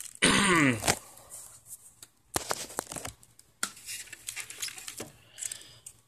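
Plastic packaging wrap crinkling and rustling inside a cardboard box, with scattered sharp crackles and light knocks as the contents are handled.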